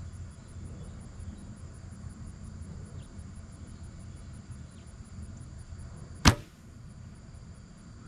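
A compound bow being shot: one sharp, loud snap of the released string about six seconds in, with a brief ring after it, over a low steady rumble.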